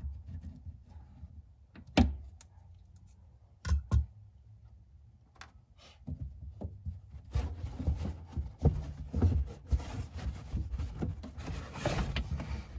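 Sharp plastic clicks and knocks as a trunk trim pull tab is worked loose, then felt trunk-liner carpet rustling and scraping as the side piece is pulled out.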